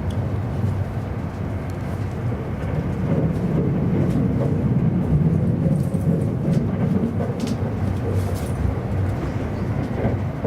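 Running noise of an E259 series Narita Express train heard from on board: a steady low rumble of wheels on track that swells louder for a few seconds in the middle, with a few faint clicks.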